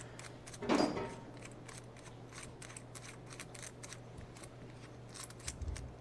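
Light, irregular clicking and ticking as the threaded coupling ring of a round Deutsch connector is screwed together by hand, with one louder brief noise just under a second in.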